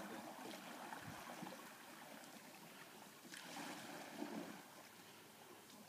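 Faint lakeside ambience: a soft, even hiss of water and air, with a brief gentle swell about three and a half seconds in.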